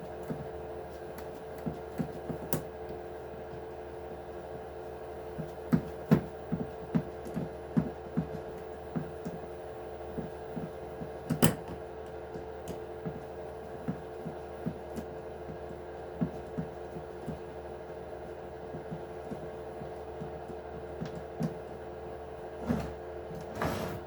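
Small irregular clicks and taps of hand tools on an RC truck's metal screws and plastic parts as the sway bars are unbolted by hand, over a steady room hum. The clicks bunch together for a few seconds midway, with one sharper click just after that.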